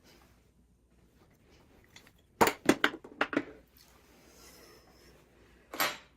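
Kitchen utensils knocking and clinking: a quick run of about five sharp knocks about two and a half seconds in, then one more near the end.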